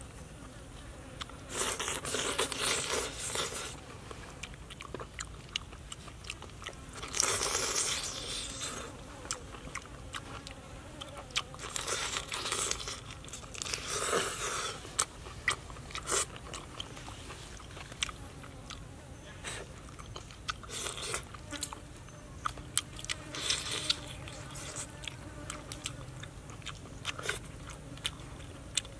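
Close-up mouth sounds of eating cooked fish head: chewing and crunching on the bones, with many small wet clicks and about five louder noisy bursts a few seconds apart.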